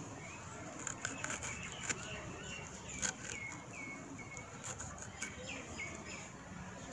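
Knife slicing raw green plantain on a wooden chopping board: a handful of sharp, irregular taps of the blade against the board, the loudest about two and three seconds in. Short bird chirps repeat through the middle of it.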